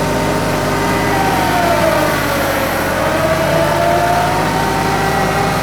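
TYM 2515H compact tractor's diesel engine running steadily under load, with a whine that dips in pitch and rises again as it works.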